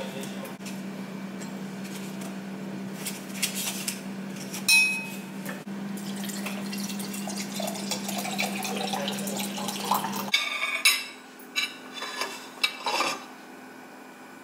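Kitchen handling: a knife and slices clinking on a plate and glass, then bottled water poured into a glass of cucumber slices, its note rising as the glass fills in the middle. A steady hum runs underneath, and a few sharp clinks of a plate come near the end.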